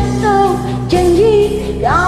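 A woman singing a Malay pop song over a karaoke backing track, her voice gliding and wavering in held notes.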